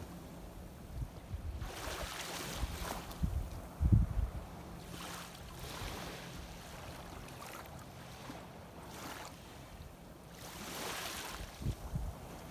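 Shallow sea water washing and sloshing in surges every few seconds, with low gusts of wind buffeting the microphone about four seconds in and again near the end.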